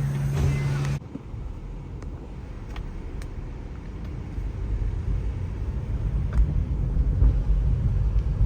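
Music cuts off about a second in, giving way to the low rumble of a car on the move, which grows louder over several seconds and is broken by a few light clicks.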